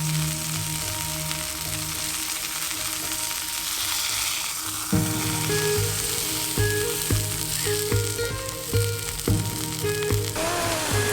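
Food sizzling and crackling in hot oil as it fries, a steady dense hiss. Background music runs under it, with a regular bass beat coming in about five seconds in.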